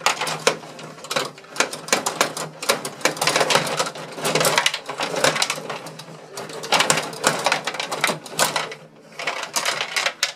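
Gretzky rod-operated table hockey game in play: the steel rods being pushed, pulled and spun, and the plastic players and puck clattering and knocking, a fast, uneven run of clicks.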